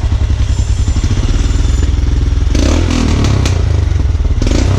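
Royal Enfield Himalayan's single-cylinder engine running through an aftermarket PoweRage exhaust, with a steady low thump. From about two and a half seconds in come louder, brighter stretches, and again near the end.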